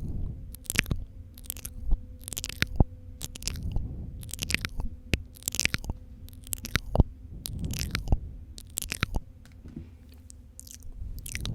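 Wet mouth sounds: lip smacks, tongue clicks and spitting noises, about two a second, with a brief pause near the end.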